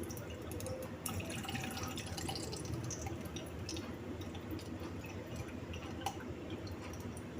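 Cooked mustard oil being strained through a strainer: faint dripping with small, scattered clicks.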